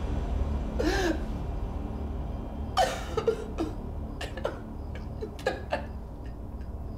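A woman sobbing and whimpering in short, gasping cries, with a low steady hum underneath.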